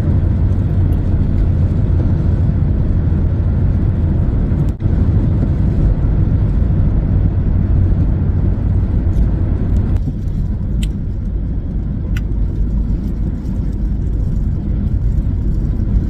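Steady low rumble of a car's engine and tyres heard from inside the cabin while driving, with a brief dropout about five seconds in.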